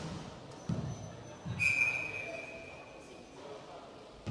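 Thuds of a cycle ball being struck and bouncing, twice in the first second and a half, then a clear high tone that sets in right after the second thud and fades away over about a second and a half.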